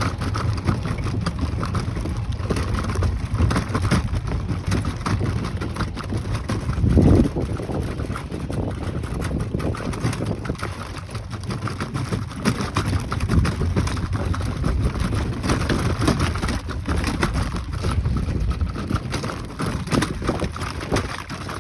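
Wind rumbling and buffeting on the microphone, with a louder gust about seven seconds in.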